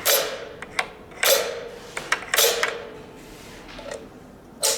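Stage curtain drop controller's aluminium clamps clacking open and shut as channel 1 triggers them: four sharp mechanical clacks, each with a brief ring, over a faint steady hum.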